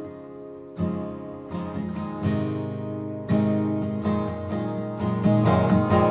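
Acoustic guitar playing an instrumental passage: chords strummed and left to ring, with quicker picked notes near the end.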